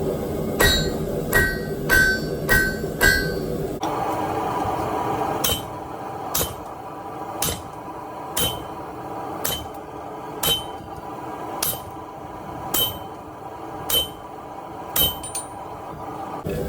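Hammer blows on hot steel over an anvil. First come five quick strikes, each ringing. About four seconds in the sound changes to a slower, even run of about eleven blows, roughly one a second, each with a higher ring.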